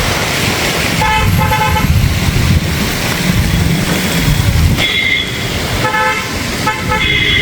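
Vehicle horns honking in road traffic: several short toots at different pitches, about six in all, over a steady wash of traffic noise.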